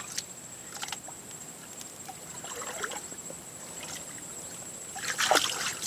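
Hand-digging of wet, waterlogged mud for an earth levee: soft sloshing, squelches and small splashes as mud and water are scooped and dumped, with a busier burst about five seconds in. A steady high-pitched whine runs underneath.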